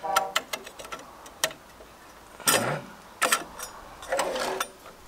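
Irregular metal clicks and knocks from the stone saw's angle guide being set on its sliding table, with a concrete paving stone laid against the fence near the end. The saw is not running.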